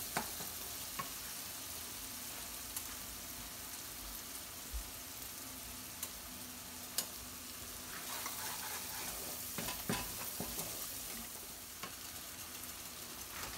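Onions and berbere paste sizzling steadily in a nonstick frying pan, being fried down on lowered heat. Now and then a wooden spoon clicks and scrapes against the pan.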